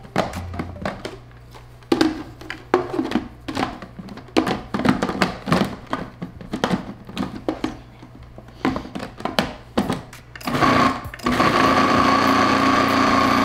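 Kitchen blending appliance motor running steadily at full speed for about three seconds near the end, blending the avocado and chocolate mixture, then cutting off suddenly. Before it comes a long run of irregular clicks and knocks.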